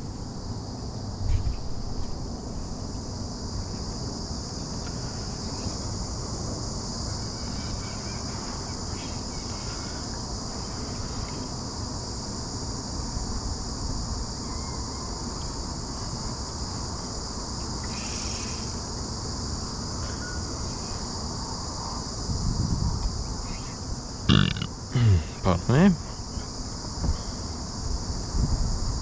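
Steady high-pitched drone of insects (crickets or cicadas) chirring without a break, with a few short, loud pitched sounds about three-quarters of the way through.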